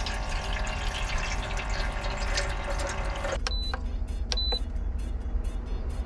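Electric water-dispenser pump on a water jug running with a steady low hum as water pours from its metal spout into a metal mess tin. The splashing of the filling water drops away about halfway through, and two short high beeps come soon after.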